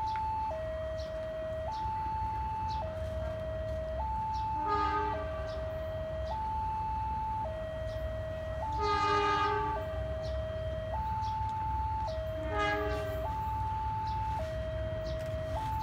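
Railway level-crossing warning alarm sounding its two-tone electronic signal, stepping between a high and a low note about every second. Over it, the approaching GE CC 203 diesel locomotive sounds its horn three times: short, longer, then short.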